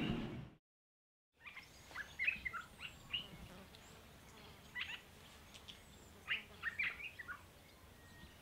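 Faint, scattered bird chirps over a quiet outdoor background, starting after a second of silence. The tail of the intro music fades out in the first half second.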